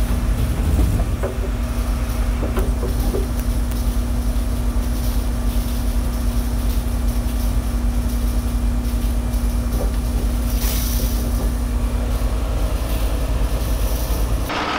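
Miller Industries Vulcan 950 rotator tow truck's diesel engine running with the hydraulics working as the outriggers are stowed: a steady engine drone with a held whine over it that stops near the end.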